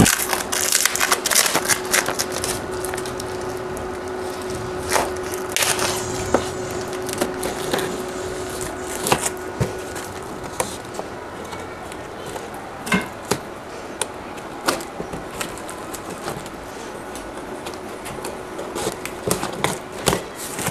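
A cardboard battery box being opened by hand: irregular crackles, knocks and rustles of cardboard, over a faint steady hum.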